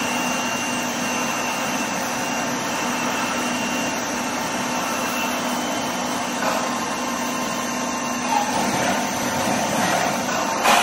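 Steady machine noise with a faint hum, growing a little louder and rougher over the last few seconds.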